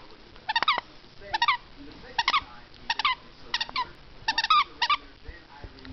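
Rat terrier puppy biting and gnawing at a pumpkin, with short clusters of high squeaks about seven times, roughly every three-quarters of a second.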